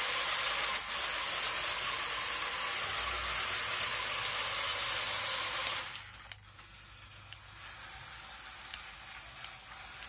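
Original Roomba's vacuum motor running with a steady hiss, then cutting off abruptly about six seconds in, leaving only a few faint clicks.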